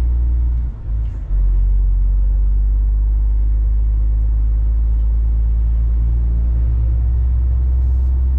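Steady low drone of a semi truck's diesel engine and road noise heard from inside the cab, dipping briefly about a second in.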